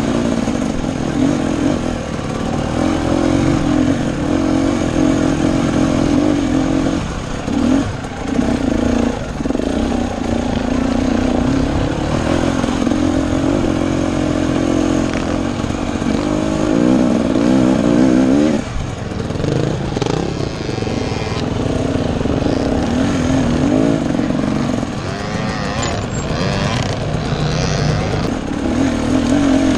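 Husqvarna TE250 dirt bike engine running under throttle while climbing a rocky trail, its pitch rising and falling as the throttle is worked, with brief drops in revs around 8 and 19 seconds in.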